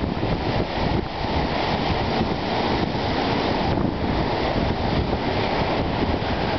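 Wind-driven waves on Lake Superior breaking and washing over a rocky shore: a loud, steady surf. Gusty wind buffets the microphone.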